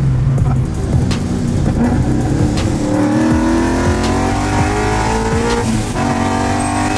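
Vortech-supercharged 5.0 V8 of an S550 Mustang GT accelerating, heard from inside the cabin. Its pitch climbs steadily for a few seconds, then drops with an upshift near the end.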